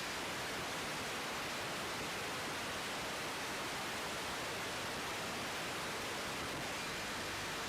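Steady, even hiss with no distinct events, typical of an open radio channel's static or constant wind and air noise.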